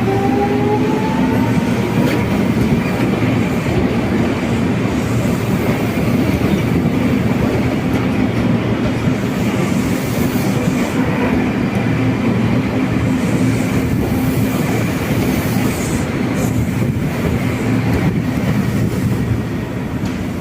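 Train running on the rails, loud and steady throughout. A whine rises in pitch over the first two seconds as the train picks up speed.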